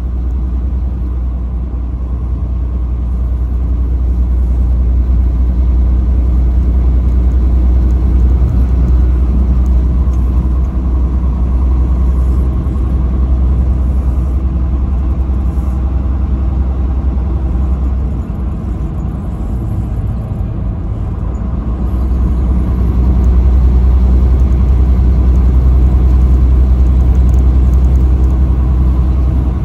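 Truck engine and road noise at highway speed: a steady low rumble that eases off for a few seconds past the middle, then grows louder again.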